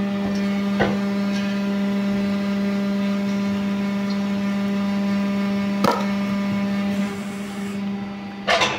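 Motor of a wood-splitting machine running with a steady hum, with two sharp knocks along the way. The hum eases off about seven seconds in, and a short crack of wood comes near the end.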